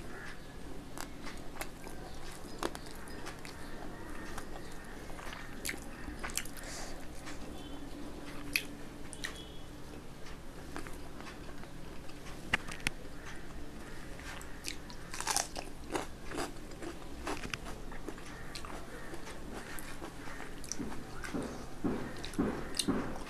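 Close-miked chewing and crunching of a rice and fish meal: scattered wet mouth clicks and crisp bites, with a run of louder crunches near the end, over a faint steady low hum.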